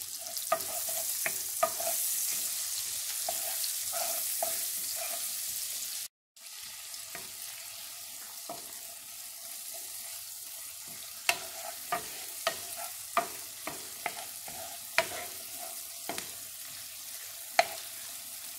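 Chopped red onion and rosemary sizzling in oil and butter in a nonstick frying pan as a wooden spatula stirs them, with arugula stirred in to wilt. Sharp taps and scrapes of the spatula against the pan come through the steady sizzle, more of them in the second half; the sizzle drops out briefly about six seconds in and comes back quieter.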